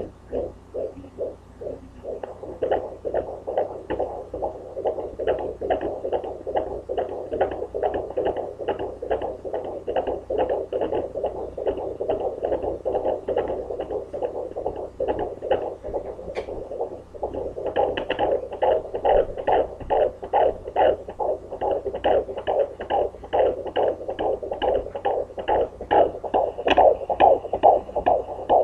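Home fetal Doppler at 17 weeks of pregnancy, its speaker giving a fast, even pulsing heartbeat. The uploader takes it for the baby's heartbeat at about 143–145 beats a minute, not her own.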